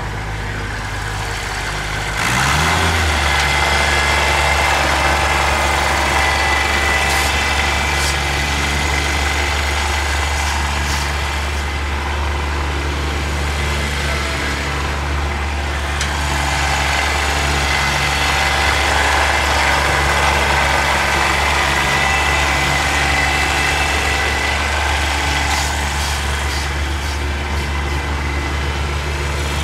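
Kubota BX sub-compact tractor's three-cylinder diesel engine running; about two seconds in its revs rise and then hold steady at the higher speed, with a few faint knocks.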